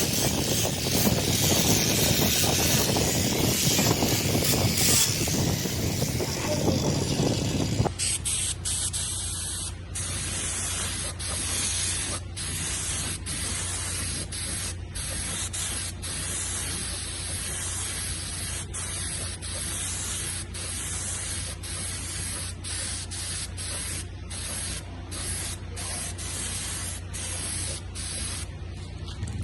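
Spraying hiss: a loud, full rush for about the first eight seconds, then a thinner high hiss cut by many short gaps, as the spray is let off and pressed again.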